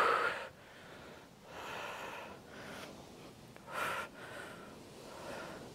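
A woman breathing hard from exertion, about four audible breaths: sharp ones at the start and about four seconds in, with softer, longer breaths between.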